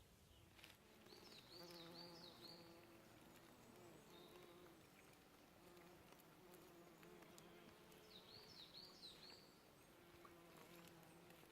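Faint hum of a bee flying near the microphone, swelling and fading as it moves about. Two short bursts of bird twittering come through, one a second or so in and another near the end.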